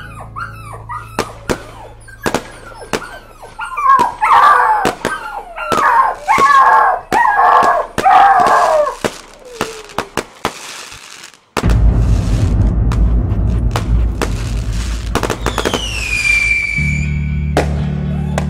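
Firecrackers going off in a run of sharp bangs while a dog whines and howls, the scared howling loudest between about four and nine seconds in. About halfway through, background music takes over, with a falling whistle near the end.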